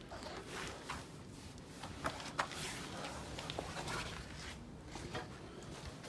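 Footsteps on dead leaves and twigs, with irregular cracks and rustles as the litter is trodden on.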